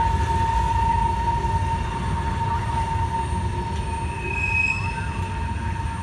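Loaded freight train rolling through a sharp curve: a steady high-pitched wheel squeal over the low rumble of the cars, with a second, higher squeal briefly joining about four seconds in. The whole sound slowly fades.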